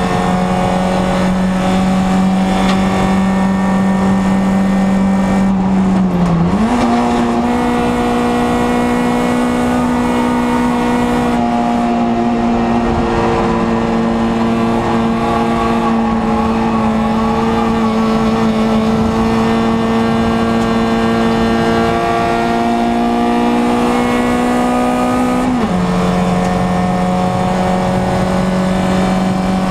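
Small-class race car's engine, heard from inside the cabin, running hard at high revs in a steady drone. About six seconds in the revs dip and then jump higher, and near the end they fall back, as gears are changed.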